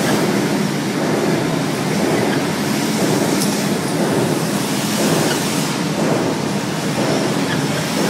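Steady din of a polishing machine running in a metal-finishing workshop: an even mechanical rush with a low hum underneath, unbroken throughout.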